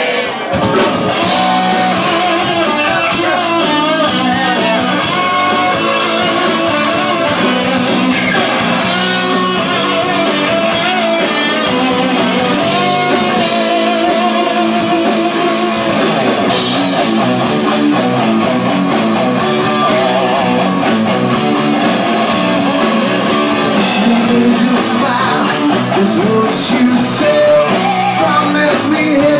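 Live rock band playing loudly, with electric guitar and a drum kit keeping a steady beat.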